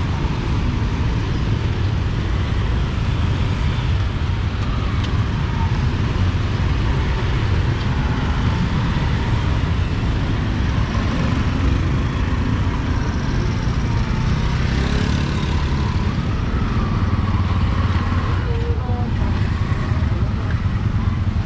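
Street ambience: road traffic running steadily with a constant low rumble, and faint voices of people in the background.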